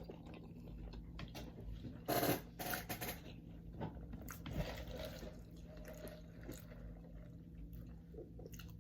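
A person biting into and chewing hot-sauce-dipped chicken wings, with a few louder bites about two to three seconds in.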